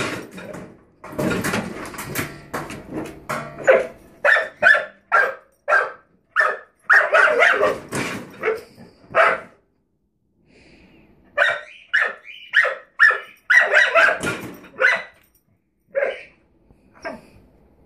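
Black Lab–pit bull mix puppy barking at the closed drawer under the oven, in quick runs of short, sharp barks about two a second, with a short pause about halfway and a few last barks near the end.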